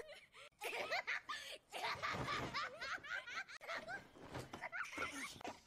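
A person laughing in a run of short bursts, with a brief pause a little before the end.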